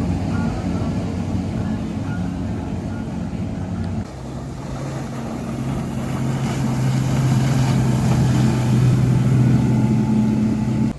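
Motorboat engines running steadily as a boat passes through the inlet. About four seconds in the engine note changes abruptly to a lower, stronger drone, which grows louder toward about nine seconds and then eases.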